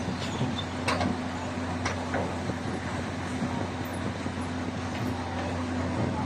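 Steady engine hum of construction machinery, with a few light knocks about one and two seconds in.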